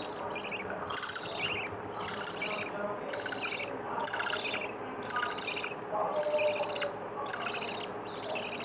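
Lovebird chicks calling: high, buzzy chirps repeated about once a second.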